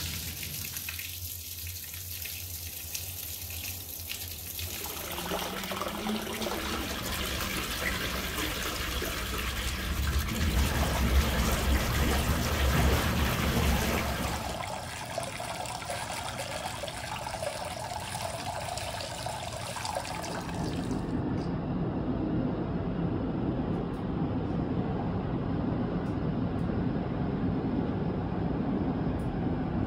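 Water pouring from a stone spout into a full bathtub, a steady splashing rush. About twenty seconds in the bright, hissy part of the splash falls away, leaving a lower steady rushing.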